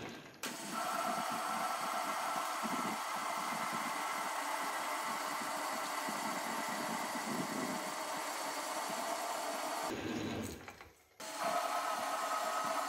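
Metal lathe running with its cutting tool taking a pass along a threaded steel rod: a steady machine hum with a higher whine over it. The sound cuts out suddenly twice, briefly just after the start and for about a second around ten seconds in.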